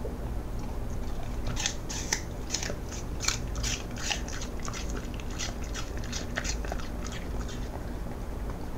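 A cocker spaniel crunching pieces of raw apple: a quick run of crisp bites begins about a second and a half in and thins out near the end.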